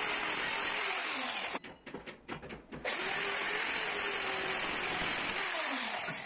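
Handheld electric circular saw cutting plywood: it runs for about a second and a half, stops for about a second with a few short clatters, then runs again for about three seconds and stops near the end.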